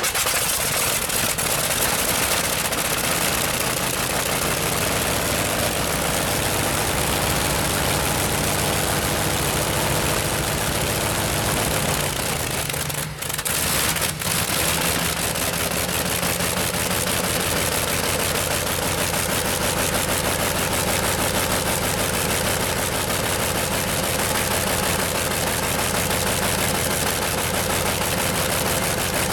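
Curtiss-Wright 18-cylinder radial engine of a pulling tractor running steadily while it warms up just after starting, with a rapid firing beat. The sound dips briefly about halfway through.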